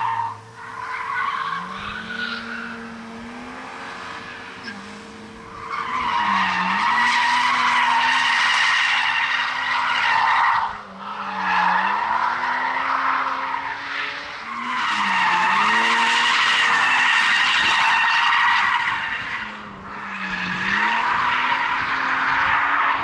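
BMW E36 328's straight-six engine revving hard, its pitch falling and climbing again several times, while the rear tyres squeal loudly through long drifts. The squeal comes in four long stretches with brief lulls between them.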